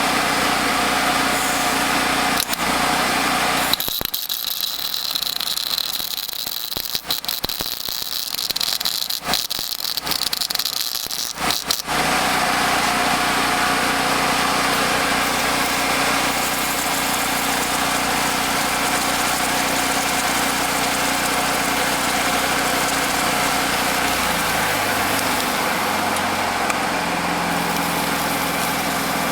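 An engine running steadily. Between about 4 and 12 seconds in there is a stretch of scattered sharp clicks, and about 24 seconds in the low hum shifts in pitch.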